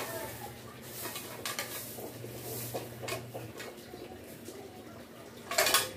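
Light metallic clinks and scrapes from a metal pot being handled and worked on, with one louder clatter of metal near the end.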